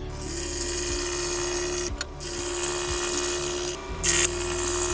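Pegas scroll saw running steadily, its blade going up and down, as a quarter-inch sapele board is fed into the blade. The hum dips briefly about two seconds in and again about four seconds in.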